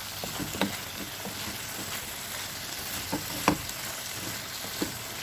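Chicken and potatoes with vegetables sizzling as they fry in a pan: a steady sizzle with a few sharp knocks, the loudest about three and a half seconds in.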